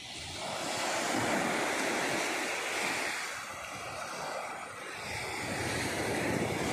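Small waves breaking and washing up on a sandy beach: an even rushing wash that surges louder, eases off midway and builds again near the end.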